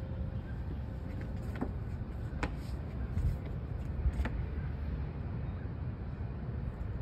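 Steady low rumble of distant city traffic, with a few faint sharp clicks.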